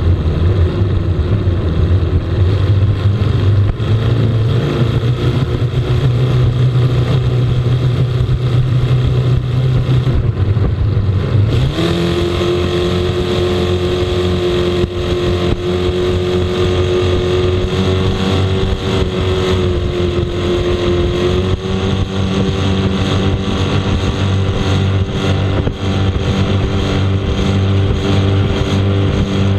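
Racing powerboat's engine running hard at speed, with wind and water rushing over the hull. About twelve seconds in, the engine note jumps to a higher, steady pitch and holds there.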